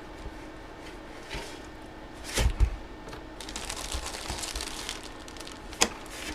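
Packaging handled while a mystery box is opened: two dull knocks, then a stretch of plastic wrapping crinkling, then a sharp click near the end.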